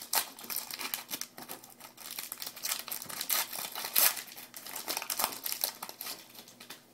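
Foil trading-card pack wrappers crinkling and being torn open, an irregular run of crackles with louder rips just after the start and about four seconds in.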